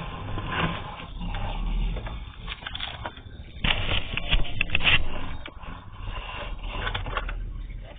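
Uneven scraping and rustling as a sewer inspection camera's push cable is fed down an exterior cleanout, loudest about four to five seconds in.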